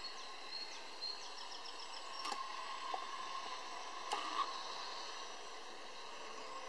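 Faint, steady whine of a GWS Pico Tiger Moth RC biplane's small electric motor and propeller in flight, a little louder in the middle, over a background hiss. A few quick high chirps sound in the first two seconds, and two sharp clicks come about two seconds apart.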